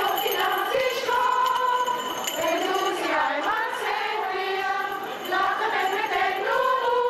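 A choir of many voices singing, holding long notes.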